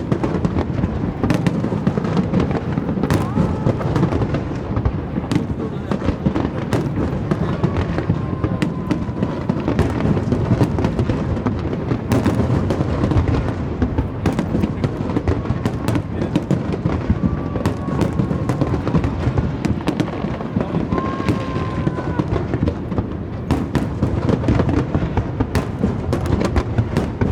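Fireworks display: a dense, continuous barrage of shell bursts, many sharp bangs and crackles over a steady rumble.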